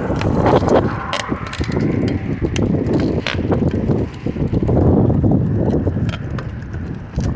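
Rushing wind noise on the microphone of a camera carried on a moving bicycle, an uneven rumble, with scattered clicks and knocks from the bike and camera.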